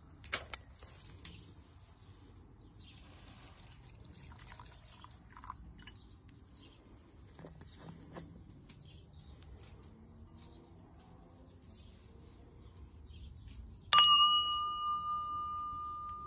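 Cut-crystal brandy snifter struck once near the end, ringing with a clear, steady two-note tone that lasts over two seconds. Two light clinks just after the start.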